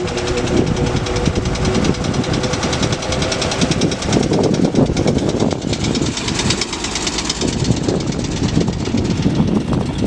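1925 REO T-6 roadster's six-cylinder engine running steadily, with a fast, even clatter of firing and valve ticks.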